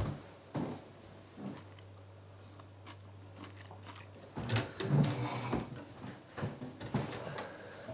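A few sharp clicks, then a low steady hum in a quiet kitchen, followed in the second half by a cluster of small knocks and rustling handling noises.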